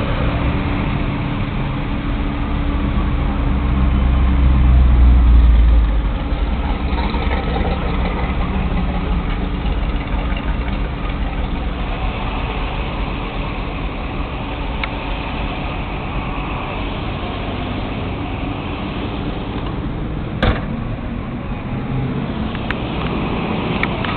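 Car engines idling and creeping along in slow car-show traffic, heard from inside a car. A deep low rumble swells louder a few seconds in and then drops away suddenly, and a single sharp click or knock comes near the end.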